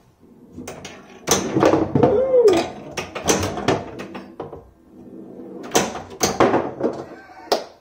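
Pinball flipper and slingshot solenoids firing on a wooden homebrew playfield: a series of sharp mechanical clacks and knocks as the steel ball is batted around, with a short vocal exclamation about two seconds in.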